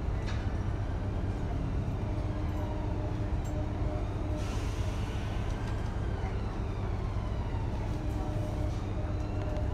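Riding inside a double-decker bus as it drives: a steady low rumble from the engine and running gear, with a drive whine that rises and falls in pitch and a brief hiss a little over four seconds in.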